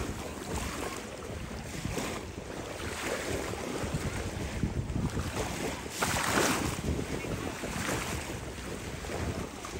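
Sea waves washing on a beach, with wind buffeting the microphone and a louder rush about six seconds in.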